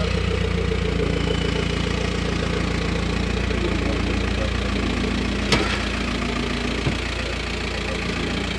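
Van engine idling steadily at close range, with a sharp click about five and a half seconds in.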